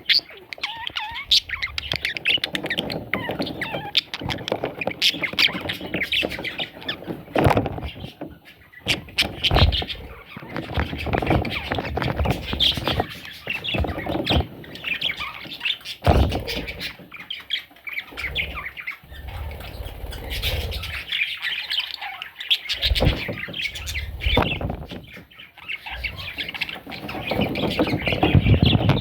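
A flock of budgerigars (budgies) chattering, chirping and squawking continuously, with knocks now and then.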